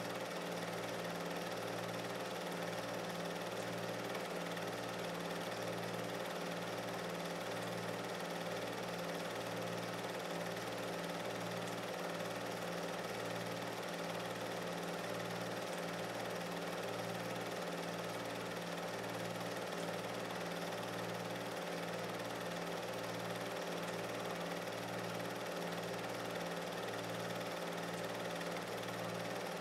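Steady mechanical hum made of several fixed tones, its lowest part throbbing about once a second, with nothing else over it.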